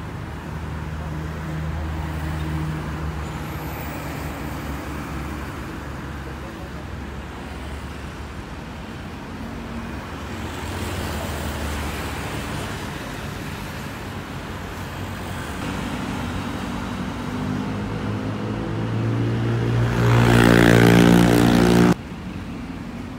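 Road traffic on a busy city street: cars, motorbikes and buses running past with a steady engine hum. Near the end one vehicle's engine grows much louder for about two seconds, then cuts off suddenly.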